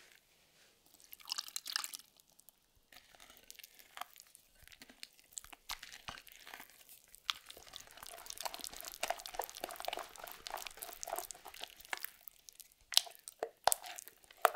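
Wooden spoon stirring thick, wet muffin batter in a glass bowl, a steady run of wet squelching and slapping as melted butter is worked in. A few sharper knocks come near the end.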